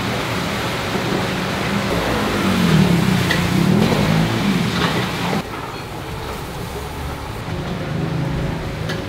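Steady roar and sizzle of woks cooking over high charcoal flames, with a few light clinks; the sound drops quieter all at once about five seconds in.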